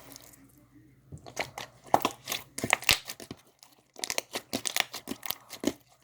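Slime being squeezed and worked by hand, giving quick sticky clicks and pops in dense runs that begin about a second in, pause briefly near four seconds, then resume.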